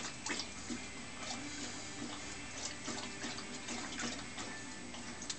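Basset hound lapping water from a toilet bowl with his head inside a plastic cone: irregular wet laps and splashes, two or three a second.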